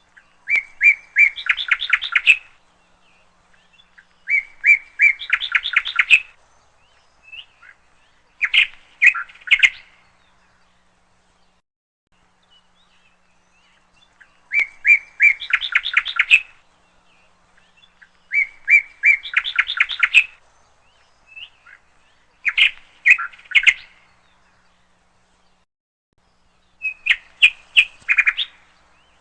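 A songbird singing in repeated short phrases, seven in all, each a quick run of chirping notes lasting about two seconds, separated by pauses of a couple of seconds, with a longer pause near the middle.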